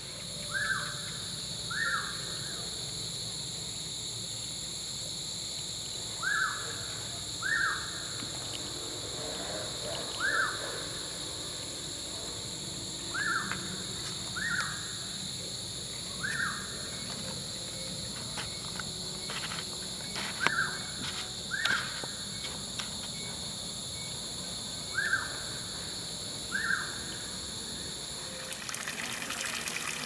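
Outdoor evening ambience: a steady high-pitched insect drone at several pitches, with a short, slightly falling call that repeats every few seconds, mostly in pairs about a second apart. The drone stops shortly before the end.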